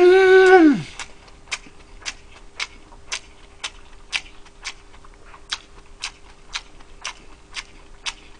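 A man hums an appreciative "mmm" that rises and falls in pitch for about a second, then chews a mouthful with sharp, regular smacks about twice a second.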